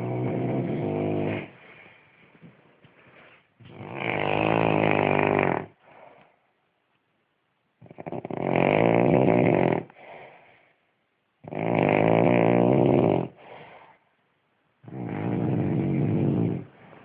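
Snoring: five loud snores about every three and a half seconds, each lasting about two seconds, with a quieter breath after each.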